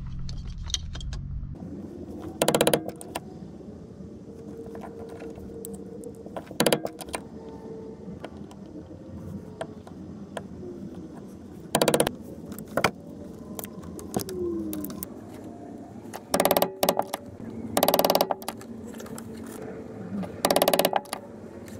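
Work noise while a small battery cutoff switch is fixed to a wooden block: six short, loud rasping bursts from a tool, a few seconds apart, over a low steady hum.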